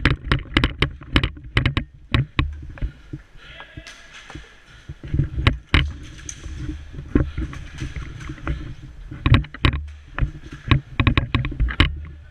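Airsoft player on the move: a low uneven rumble of movement and gear with runs of sharp clicks and knocks, in clusters at the start, around the middle and again near the end.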